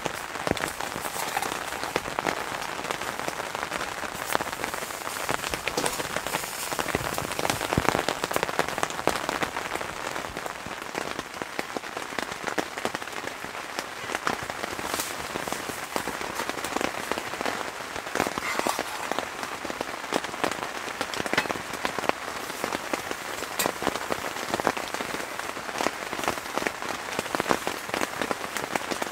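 Rain pattering on a tent's fabric and clear plastic window: a steady dense hiss full of quick sharp drop ticks.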